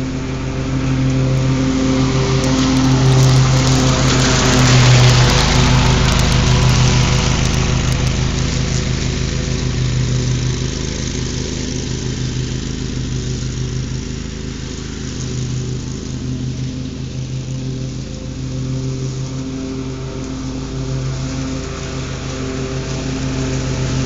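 Scag zero-turn mower running steadily with its deck blades mulching leaves. It gets louder, with a rush of noise, about three to seven seconds in, then eases off and builds again near the end.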